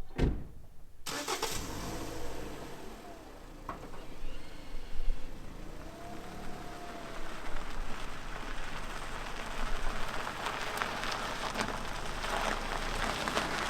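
A car running on the move, a steady mix of engine and road noise that starts suddenly about a second in, after a short low thump.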